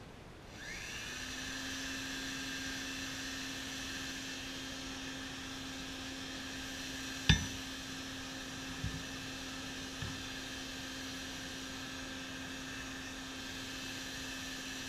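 Electric air blower for a coal forge spinning up with a rising whine, then running steadily. About seven seconds in a hammer clanks sharply once on the anvil, followed by two lighter knocks.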